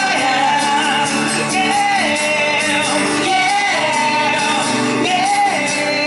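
Live music: two men singing over a strummed acoustic guitar, holding long sung notes.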